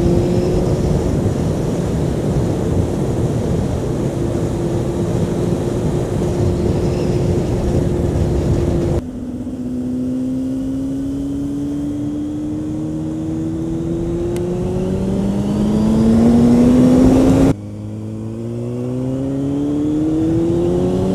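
Honda CB600F Hornet's inline-four engine under way with wind rushing over the microphone. It holds steady revs at first; about halfway through the wind drops away and the engine pulls up through the revs, then falls in pitch at an upshift near the end and starts climbing again.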